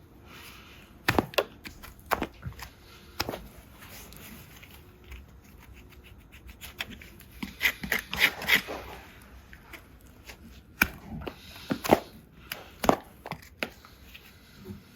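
Farrier's tools working a horse's hoof: scattered sharp clicks and knocks, with a quick run of scraping strokes about eight seconds in.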